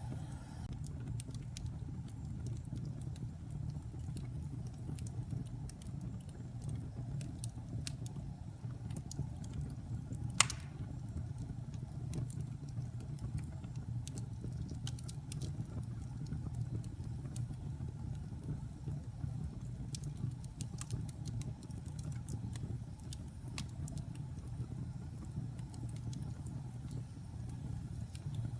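Fire burning in a fireplace: a steady low rumble with scattered crackles, and one sharp, loud pop about ten seconds in.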